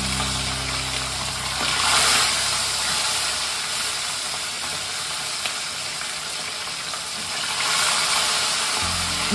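Whole fish sizzling as they shallow-fry in hot oil in a kadai, a steady spattering hiss that swells about two seconds in and again near the end.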